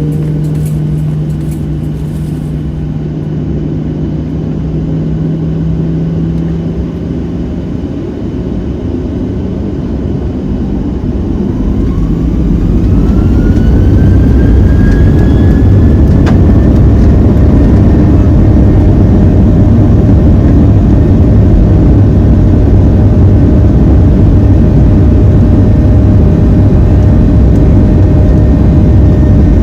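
Boeing 737-700's CFM56-7B turbofan engines, heard from inside the cabin, spooling up to takeoff thrust. A whine rises in pitch from about eleven seconds in as the sound grows much louder, then the engines run steadily and loudly at full power.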